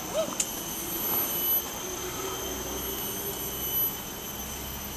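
Rainforest insects droning in several steady high tones over a low rumble, with a few brief knocks.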